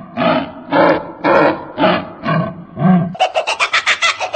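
A bird giving harsh, rasping calls about twice a second, then, about three seconds in, switching to a fast run of short chattering notes, roughly nine a second.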